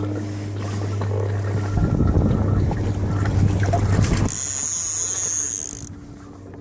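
Wind buffeting the phone's microphone on an open kayak at sea, with a steady low hum that stops about two-thirds of the way through.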